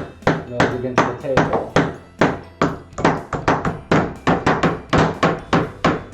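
A small hammer driving a nail into a wooden kit part with quick, steady blows, about three or four a second, each strike giving a short ringing knock.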